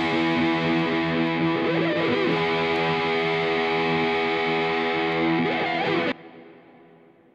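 Background music: a distorted electric guitar chord held and ringing, which cuts off suddenly about six seconds in and fades away.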